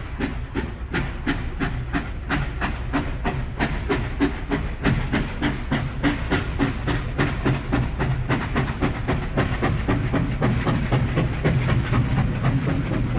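Train-like rhythmic chugging with hiss: sharp, even beats about four a second over a steady low rumble.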